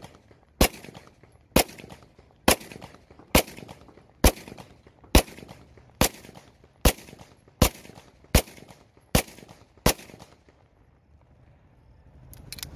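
Silver 9mm Beretta 92FS-pattern pistol, a locally made copy, fired twelve times at a steady pace of a little over one shot a second, each a sharp crack, emptying its second magazine. After a pause, a brief burst of clicks near the end.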